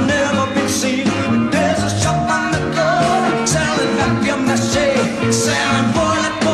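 Rock song with a singer over a full band: drums, bass and guitars.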